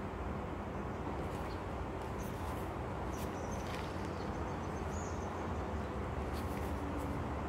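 Steady background noise with a few faint high chirps, and light scrapes of a cardboard tea box being turned over in the hands.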